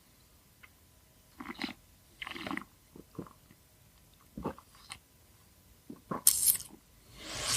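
A person sipping and tasting a cocktail: several short slurping and mouth sounds spaced a second or so apart, with a sharper slurp about six seconds in and a breath out at the end.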